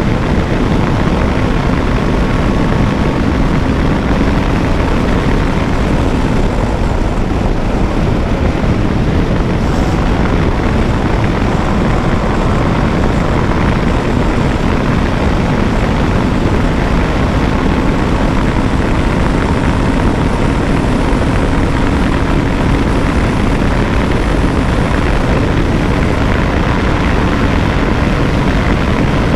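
KTM 390 Adventure's single-cylinder engine held at high, near-constant revs in sixth gear during a top-speed run, a steady drone under loud wind rush on the microphone.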